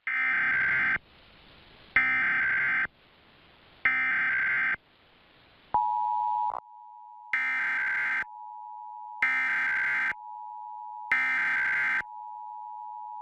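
Emergency Alert System SAME header: three one-second bursts of warbling digital data tones, about two seconds apart. About six seconds in, the steady two-tone EAS attention signal starts, and three more data bursts sound over it.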